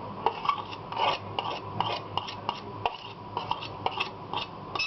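A spoon scraping and tapping against a container in short, irregular strokes, a few each second, as dry baking ingredients are spooned out and measured.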